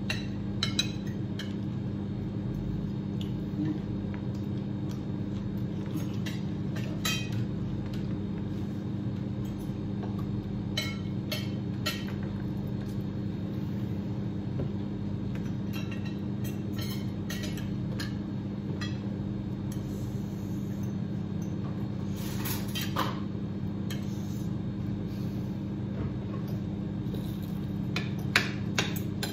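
Fork and spoon clinking and scraping against plates while eating, in scattered short clicks, over a steady low hum.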